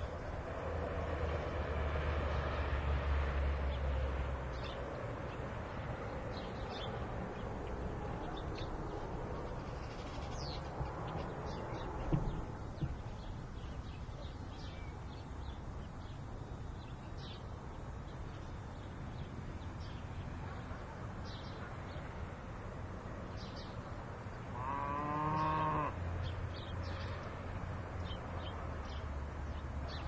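A steady low rumble with scattered short, high chirps. About 25 seconds in comes one long, low animal call with many harmonics, lasting about a second and a half.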